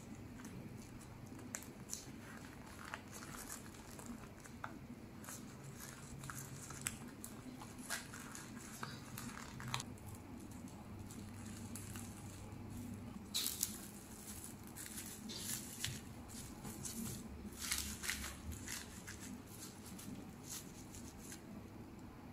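Dry nori and plastic cling film rustling and crinkling under the hands as a rice sandwich is folded and wrapped tight. The sound is soft, with scattered crackles that come thickest a little past halfway through.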